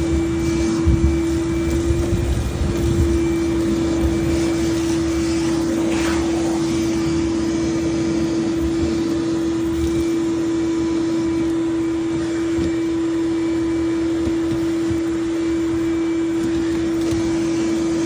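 A vacuum motor running steadily with a constant whine, loud and unchanging, with a few low bumps and knocks in the first few seconds.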